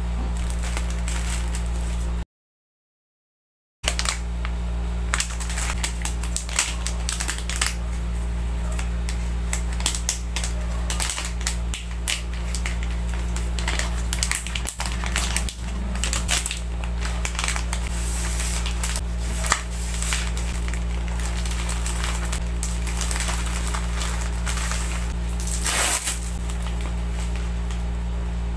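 Plastic packaging crinkling and rustling in the hands: clear bags, a sticker being pressed on, and a pink poly mailer. A steady low hum runs underneath. The sound drops out completely for about a second and a half a couple of seconds in.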